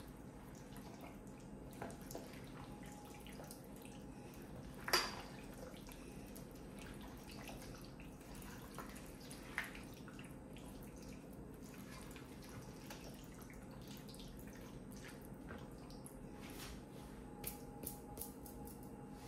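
Faint wet squelching of a silicone spatula stirring thick chicken-and-potato marinade in a metal pot, with a few light knocks of the spatula against the pot, the sharpest about five seconds in.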